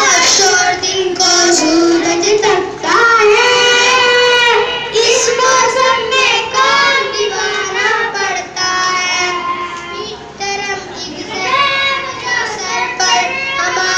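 Boys singing a qawwali together, with hand claps.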